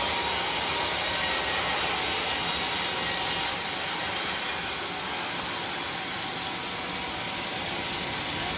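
Homemade band sawmill running, its blade sawing through a teak slab with a steady hiss. The sound eases a little and the high hiss thins about halfway through.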